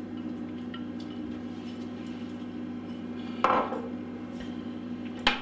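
A glass bowl knocks against a kitchen bench or the glass baking dish, a sharp clink with a short ring about three and a half seconds in, then a second brief knock near the end. Under it runs a steady low electrical hum.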